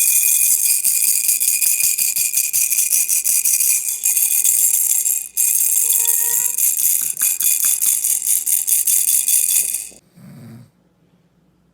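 Baby rattle toy shaken rapidly and steadily, a fast run of bright clicks with ringing, with a short break about five seconds in; it stops near the end, followed by a brief low sound.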